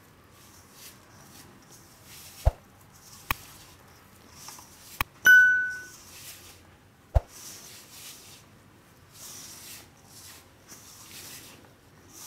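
Hands rubbing flour, butter and curd together in a stainless steel bowl: a soft, repeated rustle of the flour, with several sharp knocks against the steel bowl. The loudest knock, about five seconds in, leaves the bowl ringing briefly.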